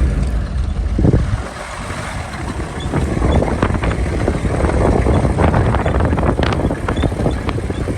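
An off-road 4x4's engine running with a low rumble that drops away about a second in. From about three seconds on there is dense crackling and rattling under it, with wind noise on the microphone.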